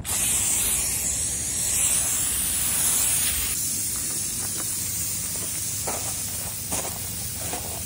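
Aerosol can spraying through its straw nozzle in one continuous hiss, loudest at first while aimed into the gap between the tire bead and the rim, then softer as a line is sprayed along the gravel. The flammable spray is being laid down to seat the tire bead by igniting it.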